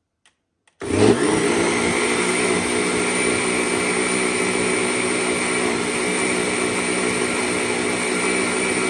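Countertop blender switched on about a second in, spinning up quickly with a short rise in pitch, then running steadily at speed as it blends a liquid egg, cream cheese and butter batter.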